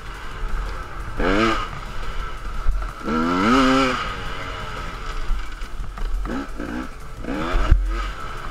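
Enduro dirt bike engine revving hard in repeated rising sweeps as it accelerates and shifts up, with a quick run of short revs near the end, over a steady rumble of wind on the helmet-mounted camera. A sharp thump comes near the end.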